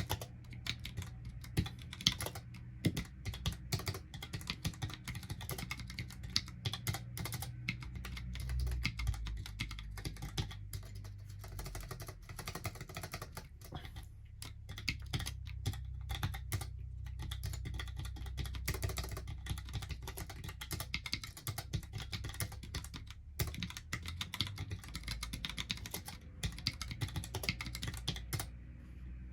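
Typing on a Mistel Barocco MD650L split mechanical keyboard with Cherry ML low-profile switches: a fast, irregular run of key clicks that stops about a second before the end.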